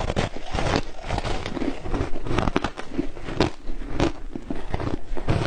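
Shaved ice with matcha being bitten and chewed in the mouth: dense, irregular crunching and crackling.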